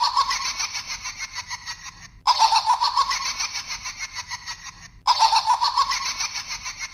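A laughter sound clip played three times in a row. Each go is a burst of rapid laughing that starts abruptly and fades over about two and a half seconds.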